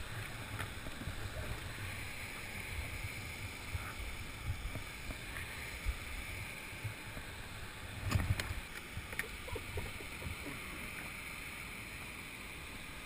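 Steady rush of whitewater with wind rumbling on the microphone. Scattered knocks and scrapes come from a plastic kayak being hauled by rope over rock and grass, with a cluster of knocks about eight seconds in.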